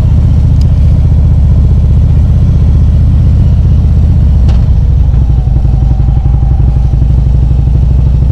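A Harley-Davidson Ultra Limited's V-twin engine running steadily, with the bike under way. There is a sharp click about four and a half seconds in.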